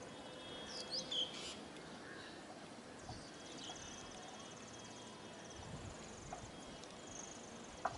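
Birds calling: a cluster of sharp, high whistled chirps about a second in, then scattered short calls. Under them runs a faint, rapidly pulsed high buzz, like insects trilling.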